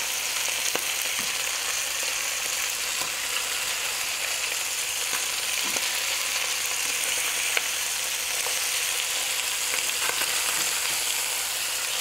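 Skinless chicken thighs sizzling steadily as they brown in a little olive oil in a stainless steel pan on medium-high heat, with light clicks of metal tongs against the pan as the pieces are moved.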